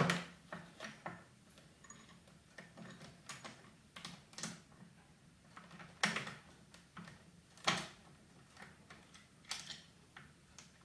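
Irregular plastic clicks and knocks as a power wheelchair's joystick controller is handled and fitted back onto its armrest mount, its cable being worked into place. The loudest knocks come about six and eight seconds in.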